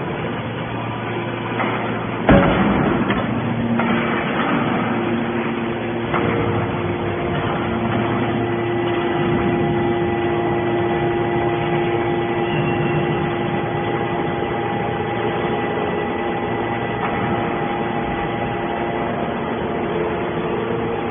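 Hydraulic scrap-aluminium baler running, a steady machine hum with held tones, with one sharp bang about two seconds in.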